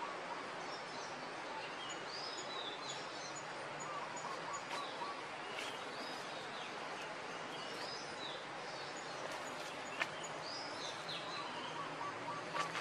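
Outdoor ambience: a steady background hiss with birds chirping again and again in short high calls, and a sharp click about ten seconds in.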